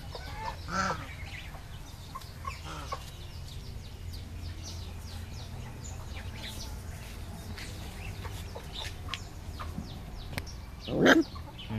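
Chickens clucking now and then, with one short, loud squawk that rises sharply in pitch near the end.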